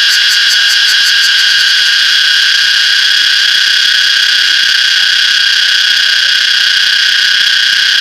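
Cicada singing about 20 cm away: a loud, steady, high buzzing drone. For the first couple of seconds its top end pulses rapidly, then it smooths into an even whine.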